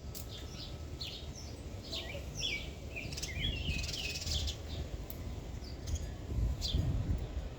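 Small birds chirping, many short falling chirps, busiest a few seconds in, over a steady low rumble.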